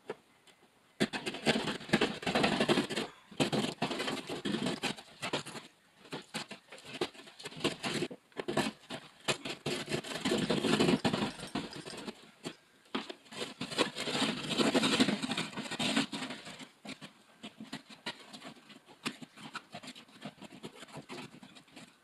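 Hand jab saw sawing through drywall: rasping back-and-forth strokes in runs with short pauses, starting about a second in and thinning out after about sixteen seconds.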